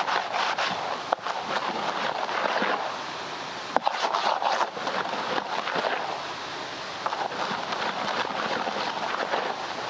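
Hands mixing ready-made dry fishing groundbait in a plastic basin as it is first wetted: a steady grainy rustling and scraping, with a few sharper knocks.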